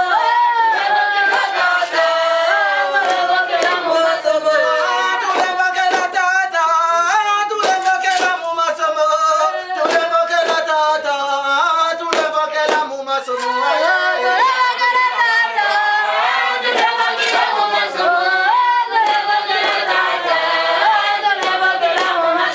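A group of voices singing together without instruments, with handclaps.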